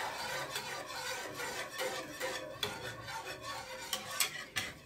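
Wire whisk stirring a flour mixture in a square ceramic-coated pan, with quick, irregular scraping and clicking of the wires against the pan.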